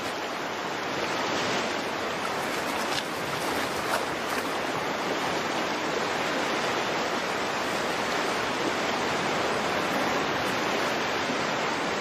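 Rushing water of a salmon stream, a steady even rush.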